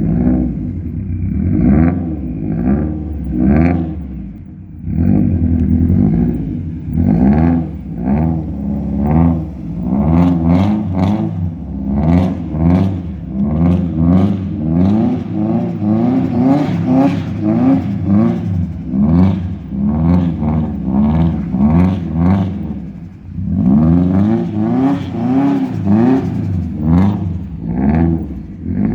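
Subaru Impreza's turbocharged flat-four engine through a loud exhaust, revved up and down over and over in quick swells, about one a second, with two short easings off.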